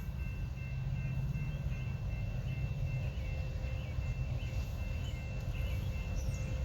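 Low, steady rumble of an approaching train's diesel locomotives, with birds chirping faintly over it.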